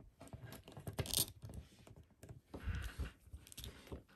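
Light clicks and taps of a plastic action figure being handled as its head is pulled off the neck peg, with a brief rustle about a second in and again near three seconds.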